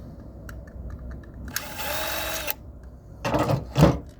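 A power screwdriver runs for about a second, its motor whirring up and winding down as it backs out a screw from the robot vacuum's plastic housing. Near the end come a few loud knocks and rattles of parts being handled.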